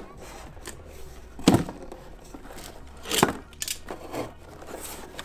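Cardboard box being opened by hand: a few short rips and scrapes of cardboard and packing tape, the two loudest about a second and a half and about three seconds in.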